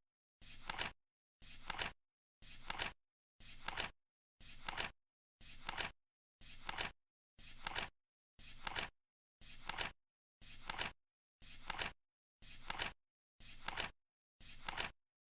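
Flip-clock countdown timer ticking once a second, about fifteen times. Each tick is a half-second rustling flip that builds up and ends in a sharp click.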